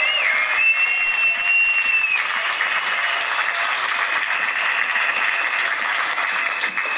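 Crowd applauding and cheering in response to the speech. A shrill, high, steady tone blasts twice over it in the first two seconds, and fainter again near the end.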